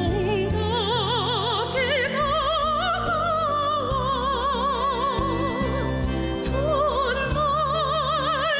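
A singer holding long notes with wide vibrato over a musical accompaniment with sustained bass notes.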